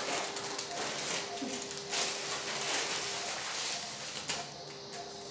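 Electrosurgical unit's steady activation tone sounding while the cautery pencil cuts through abdominal wall muscle, with a crackling hiss of tissue being burned; the tone breaks off for about a second past the three-second mark, then starts again. Short higher beeps repeat about every half second, typical of a patient monitor's pulse tone.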